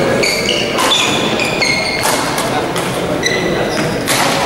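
Sports shoes squeaking in short chirps on a hall floor, mixed with sharp knocks and thuds from play, over the constant chatter of a large indoor sports hall.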